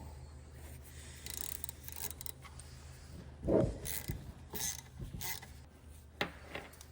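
Tools and metal turbocharger parts being handled during teardown: scattered clinks and scrapes, with a dull knock about three and a half seconds in and sharp clicks near the end, over a steady low hum.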